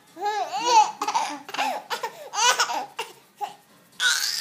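Baby laughing in a string of short, high-pitched bursts, each rising and falling in pitch, with a higher, breathier burst near the end.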